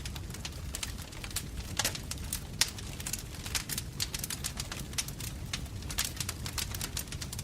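Wood fire crackling in a fireplace, with irregular sharp pops and snaps several times a second over a steady low rumble of the flames.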